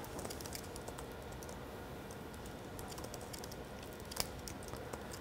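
Faint typing on a computer keyboard: a scattered run of light key clicks, one slightly louder about four seconds in.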